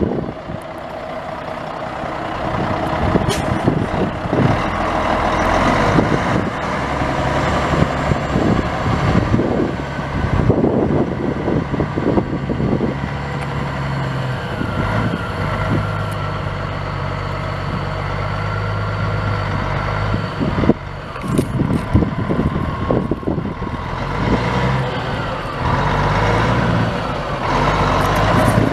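Caterpillar 3406C inline-six turbo diesel in a Freightliner semi truck running, its engine speed rising and falling in steps again and again, with occasional knocks.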